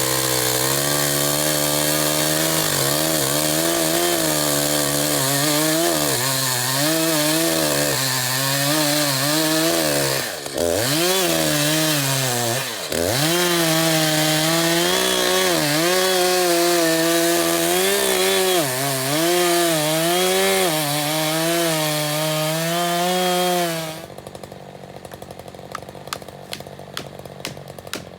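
Chainsaw bucking a felled sweet gum trunk, its engine pitch wavering as it bites and dipping sharply twice in the middle under load. Near the end the saw falls much quieter, leaving a faint low hum and light ticking.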